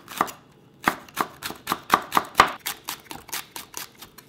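Chef's knife slicing green and red chili peppers into thin rings on a wooden cutting board, the blade knocking the board in a steady run of about four cuts a second.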